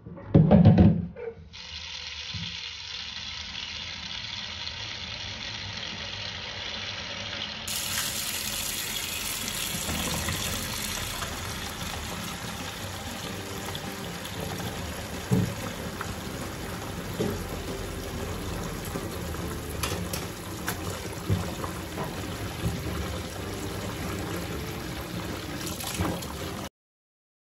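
Kitchen sink tap running steadily into the sink, with a few short knocks of things set against the sink. A loud knock comes about half a second in, before the water starts, and the running water cuts off suddenly near the end.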